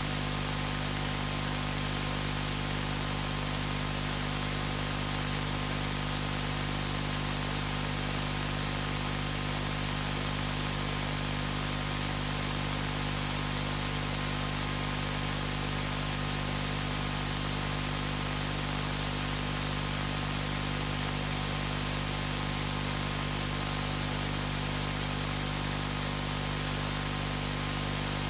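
Steady hiss of background noise, even and unchanging, with a faint low hum under it.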